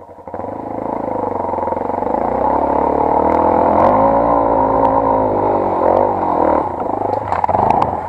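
Dirt bike engine revving hard under load on a steep dirt hill climb, its pitch sagging and rising again, with a few sharp ticks near the end.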